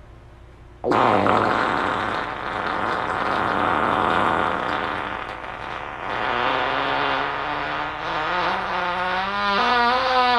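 A long, loud fart that starts suddenly about a second in as a rough, noisy blast, then turns into a buzzing tone that slowly rises in pitch and wavers quickly near the end.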